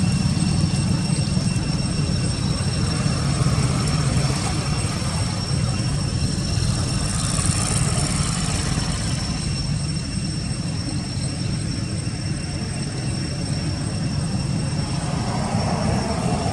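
Steady low outdoor rumble with thin, faint high-pitched steady tones above it; no distinct events.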